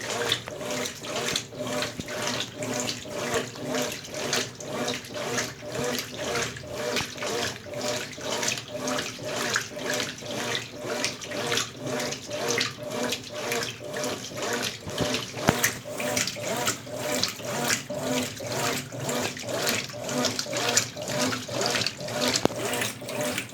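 Consul Facilite 10 kg top-loading washing machine agitating in its wash stage, swishing water and a heavy load of bed and bath linen back and forth in a steady rhythm of about two strokes a second.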